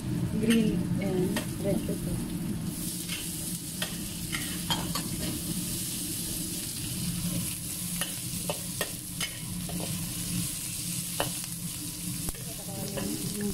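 Food stir-frying in hot oil in a wok: a steady sizzle, with a metal spatula scraping and clicking against the pan as garlic, onion and diced bell peppers are tossed.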